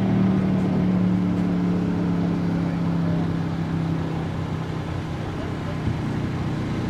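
Land speed race car's engine running hard on a salt-lake speed run, a single steady engine note that fades and drops slightly in pitch as the car moves away.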